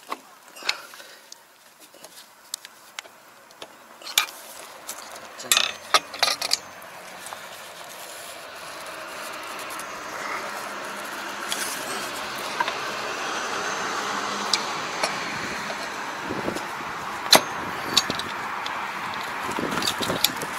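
Scattered metal clicks and knocks of a screwdriver and gloved hands working at the stuck cast gearbox cover of a Kobashi rotary tiller, which will not come open at one spot. From about eight seconds in, a steady mechanical noise grows louder underneath.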